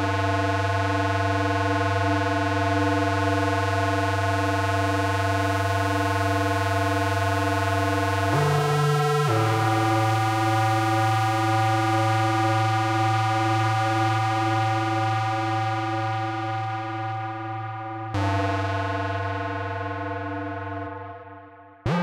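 Yamaha CS01 analog monosynth holding long, low, buzzy sustained notes through a tape echo. The pitch shifts about eight seconds in to a new held note. That note is struck again about eighteen seconds in and fades away near the end.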